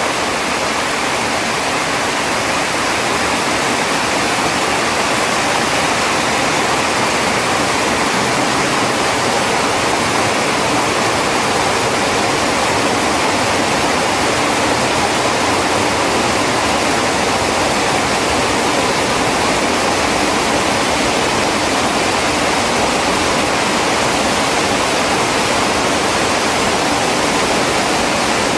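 Floodwater rushing over a low rock-ledge cascade in a steady, dense rush: a creek rising in a flash flood, the flow swelling and spilling over the rock slab.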